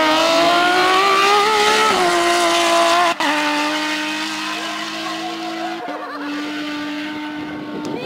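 Porsche 997 GT3 rally car's flat-six engine at full throttle, the revs climbing for about two seconds before dropping at a lift or shift. After a sharp break about three seconds in, it holds a steady pitch and slowly fades as the car drives away.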